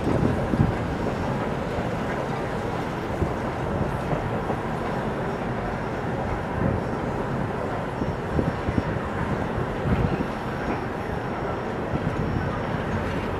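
Soo Line 4-6-2 steam locomotive No. 2719 pulling its passenger train, heard from an open coach window a few cars back: the steady rumble of the train running, with a few irregular low thumps.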